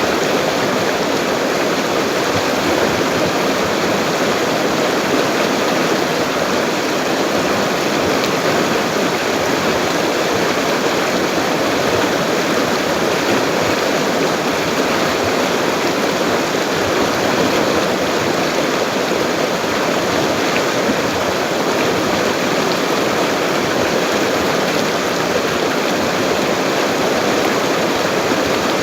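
A full, fast-flowing river rushing steadily: a constant, unbroken wash of running water.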